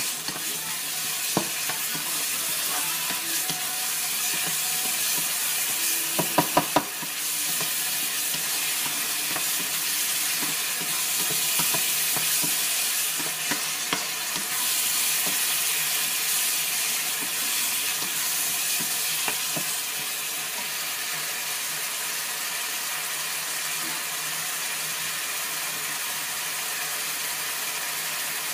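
Minced pork with shrimp paste sizzling in a hot pan as it is stir-fried, a wooden spatula scraping and knocking against the pan, with a quick run of knocks about six seconds in.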